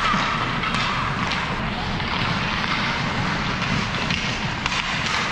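Ice hockey rink ambience during play: a steady wash of noise with the scrape of skates and a few faint knocks of sticks and puck.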